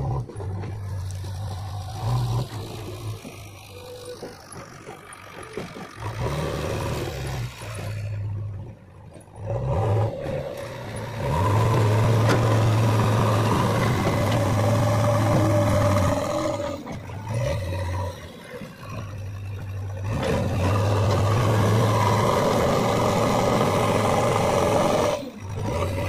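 JCB 3DX backhoe loader's diesel engine running close by. It swells louder twice, for about five seconds each, in the middle and near the end, as the loader is worked under load while carrying and scooping earth with its front bucket.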